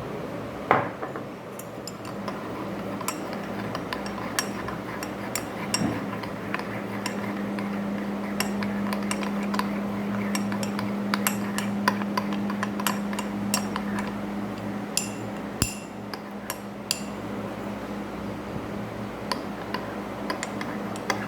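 A metal utensil clinking against a ceramic mug again and again while stirring or beating an egg mixture. A steady low hum sits under it for several seconds in the middle.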